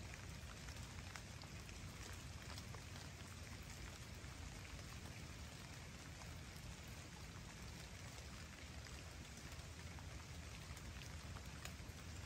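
Steady light rain falling on a forest lake, a faint even hiss dotted with the ticks of individual drops.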